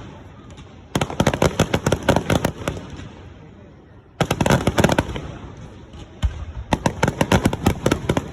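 Aerial fireworks bursting: three volleys of rapid crackling bangs, about a second in, past four seconds and near the end, with a low rumbling echo between them.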